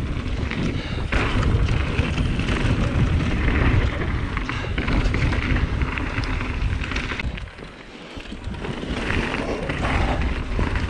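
Mountain bike descending a dirt trail: heavy wind buffeting on the camera's microphone over a rough clatter of tyres and bike. The buffeting eases for about a second two-thirds of the way in, then builds again.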